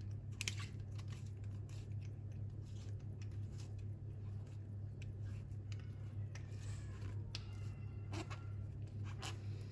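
Small clicks and scrapes of a metal wristwatch caseback being worked shut tightly by hand, with the sharpest clicks about half a second in and near the end, over a steady low hum.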